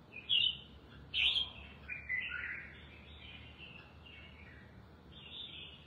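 Caged red-whiskered bulbul singing a few short phrases, the loudest about a second in.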